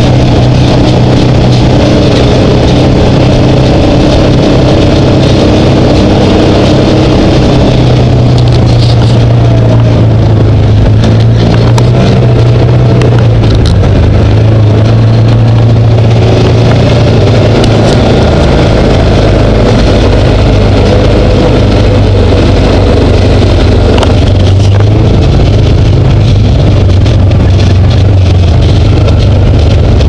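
A Can-Am Commander side-by-side's V-twin engine running loud and steady as the machine drives along a dirt trail, with a few sharp clicks over it.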